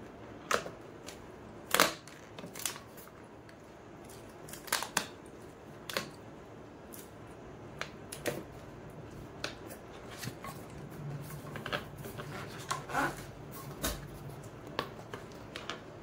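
Hands knotting two inflated latex modelling balloons together: irregular squeaks and sharp clicks of the rubber being twisted and rubbed, the loudest about two seconds in.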